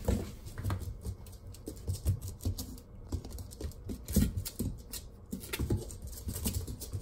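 Shiba Inu puppy's paws and claws pattering and scrabbling on a vinyl floor mat as it plays with a rope toy, in irregular taps with a few heavier thumps, the loudest a little past the middle.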